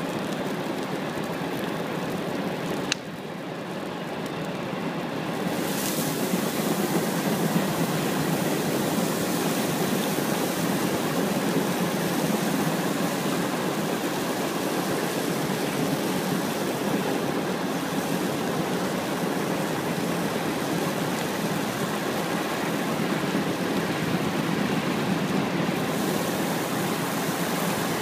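Large brush-pile bonfire burning: a steady rushing noise of the flames. A sharp click comes about three seconds in, after which the sound briefly drops and swells back up by about six seconds.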